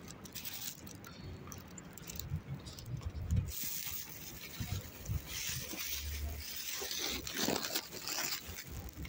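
Irregular rustling and scuffing, with a few soft low thumps, as someone walks along carrying things.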